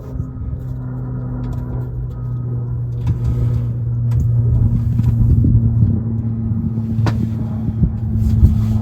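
A motor vehicle's engine running with a steady low hum that grows louder, with a few knocks and a sharp click about seven seconds in.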